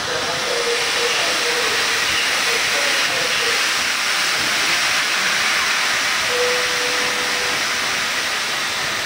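Pt47 steam locomotive standing and venting steam with a steady, loud hiss. A thin faint tone sounds briefly under the hiss about six seconds in.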